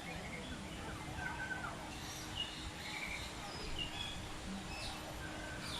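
Many birds chirping and whistling: short separate calls from several birds scattered throughout, over a steady background rush.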